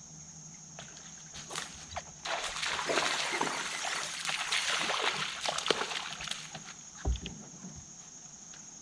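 A hooked fish thrashing and splashing at the surface beside the boat, a dense run of splashes from about two to six and a half seconds in. A low thump comes about a second later, and a steady insect drone runs underneath.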